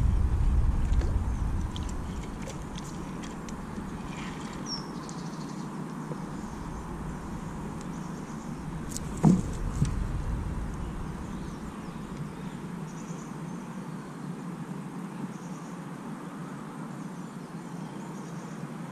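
Outdoor riverbank ambience: wind buffeting the microphone at first, dying away after two or three seconds into a steady low hiss. A short high chirp sounds about five seconds in, and a single sharp thump a little past halfway.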